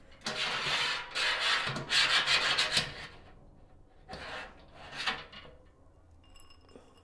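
Crinkling and rustling of hop bags being handled and emptied into the brew kettle as the last hop addition, 1 ounce each of Simcoe and Mosaic, goes in: three long rustles close together, then two short ones.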